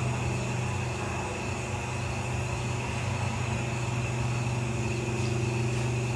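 Steady low mechanical hum with a faint high whine above it, even and unchanging throughout.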